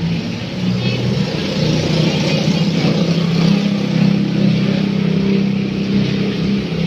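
Motorbike engines running as the bikes pass on a wet road, with a steady hiss over them.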